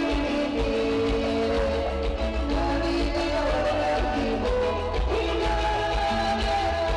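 Latin dance music from a live band on stage, loud, with held melody notes over a pulsing bass beat.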